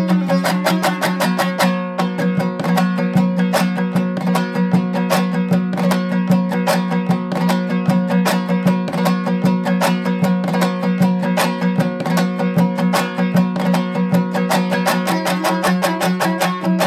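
Instrumental music: fast plucked-string playing over a steady low drone.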